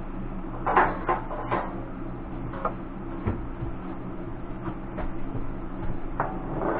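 Sharp clicks and clinks of pliers and small metal carburetor parts being handled, a quick cluster about a second in and then a few single ones, over the steady hum of an electric fan.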